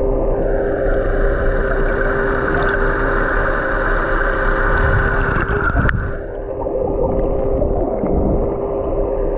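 Boat engine running steadily with a constant hum, under wind and water noise; a single sharp knock about six seconds in.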